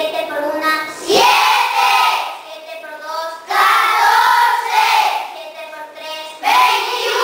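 A class of children chanting the multiplication tables in Spanish in unison, answering a single voice in call and response. The loud chorus comes in three times, about every three seconds, with the lone voice between.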